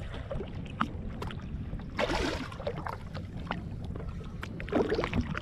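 Small waves sloshing and slapping against a boat's hull at the waterline, with many small splashes and drips and one louder splash about two seconds in.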